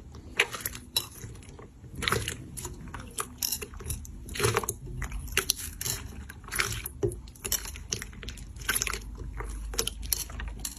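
Slime being squeezed and pressed by hand, giving irregular crackling pops and clicks several times a second.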